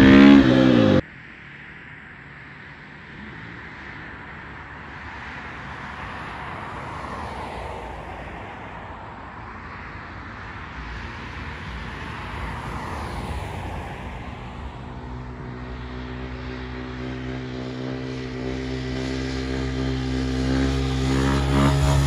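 A dirt bike engine heard from a distance, revving up and down through the gears, then settling into a steadier engine note that grows louder as it comes closer over the last several seconds. A louder sound cuts off abruptly about a second in.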